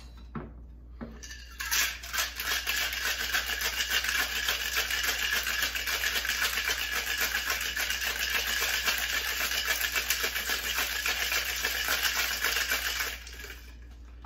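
Ice and liquid rattling hard inside a Boston cocktail shaker, a metal tin sealed over a mixing glass, shaken vigorously and evenly for about eleven seconds, starting a couple of seconds in and stopping about a second before the end. A sharp knock comes right at the end.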